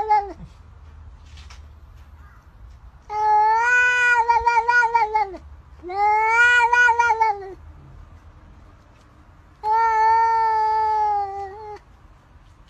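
A cat giving three long, drawn-out meows, each about two seconds, with short pauses between them; the end of an earlier meow fades out at the very start.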